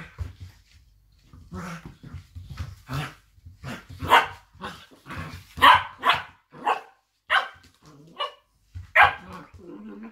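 Two cocker spaniels barking during play fighting: a string of short, sharp barks, softer at first and loudest from about four seconds in.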